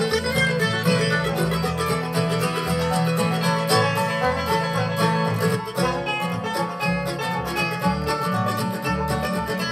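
Bluegrass band playing an instrumental break, with the banjo to the fore over mandolin, acoustic guitar and a plucked upright bass line.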